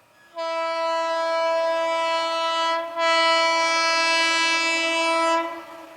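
WAP-7 electric locomotive's horn sounding two long, steady blasts at one pitch, the second following the first after a very short break about three seconds in.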